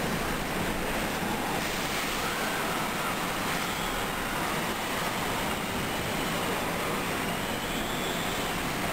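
Super typhoon winds and driving rain, a steady, unbroken rushing noise.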